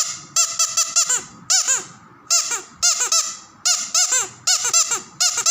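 Squeaky dog toy squeezed over and over, about two squeaks a second, some in quick pairs, each squeak rising then falling in pitch.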